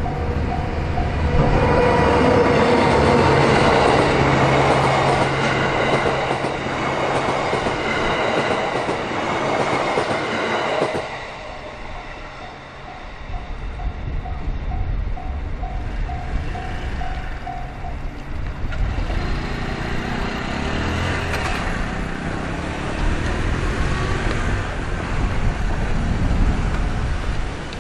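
A train carrying newly built Shinano Railway SR1 series electric cars rolls past on a delivery run, the wheels clattering along the rails. The sound eases briefly about halfway through, then carries on as the rest of the consist goes by.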